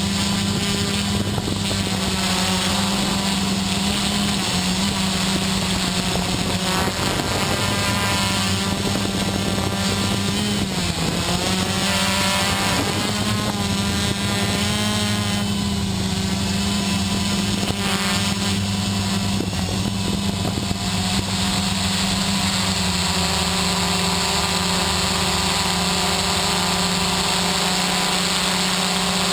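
Quadcopter's electric motors and propellers heard from the camera on board: a steady buzzing hum. Its pitch wavers and dips briefly around the middle as the throttle changes.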